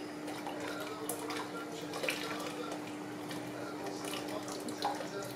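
A thin flour-and-water mixture poured from a bowl into a pot of simmering harira soup while a wooden spoon stirs it: a faint liquid trickle with a few light taps of the spoon, over a steady low hum.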